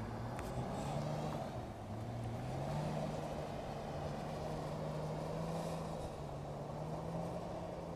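BMW engine held at high revs while the car drifts on snow, heard from a distance; the revs climb about two seconds in and then stay up.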